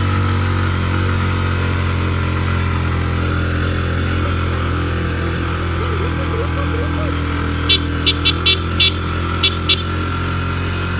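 Engine of an open-sided passenger vehicle running steadily while driving along a road, a constant low drone. About eight seconds in, a quick run of about seven short, sharp high ticks.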